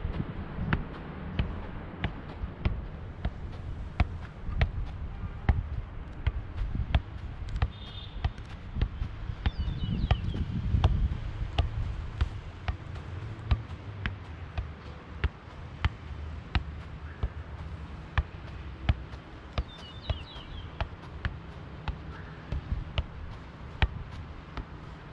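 A football being juggled keepy-uppy style: a steady run of short thuds of foot on ball, somewhat under two a second.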